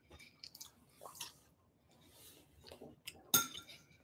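Faint chewing of cooked cauliflower close to the microphone, with scattered small clicks and one sharper click a little over three seconds in.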